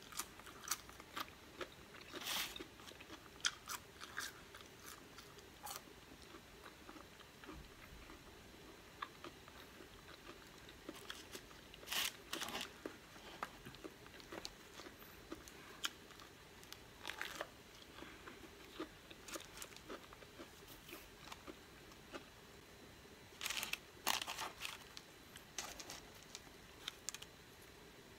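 A person eating close to the microphone: scattered wet chewing clicks and crunches, with a few short clusters of louder crunching bites.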